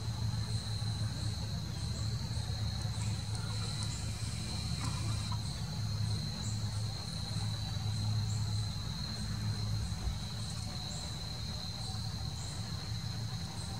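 Insects trilling steadily in one continuous high-pitched drone, with faint short chirps repeating above it and a low steady hum underneath.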